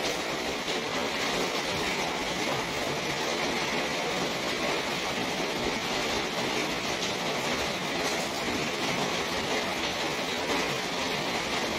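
Steady rain falling on a garden and terrace: an even hiss of drops, unchanging, with no single louder event.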